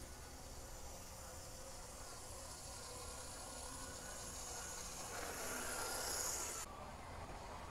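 TYCO Power Torque pancake motor and gear drive of an HO F9 locomotive running on the layout, a high buzzing whine that grows louder as the engine passes close by, then cuts off suddenly near the end. The drive has just had its slipped pivot gear glued back on the motor shaft and is still breaking in.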